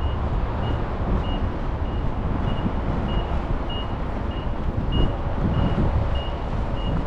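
A vehicle's reversing alarm beeping at a steady pace, about one and a half beeps a second, over the low rumble of road traffic. The beeping stops near the end.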